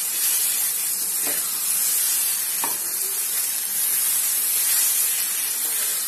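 Ground green-chilli pickle paste sizzling in a nonstick frying pan as it is stirred with a spatula: a steady frying hiss, with a couple of spatula scrapes about a second in and again near three seconds. The paste is being fried to cook off its remaining water.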